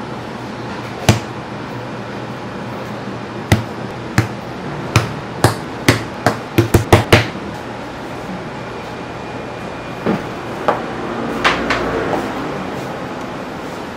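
A row of sharp knocks on a wooden worktable as dough is portioned by hand, a dozen or so, coming faster around six to seven seconds in. A few softer knocks and a brief rustle follow near the end as hands work dough in a plastic tub.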